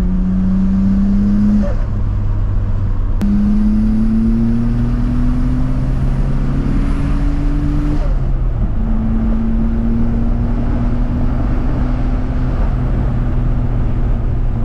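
Turbocharged Nissan Skyline's engine heard from inside the cabin, pulling hard through the gears: a gear change about two seconds in, a long rising pull to about eight seconds in, another shift, then steady cruising. The engine is running cleanly under boost on its new intake couplers.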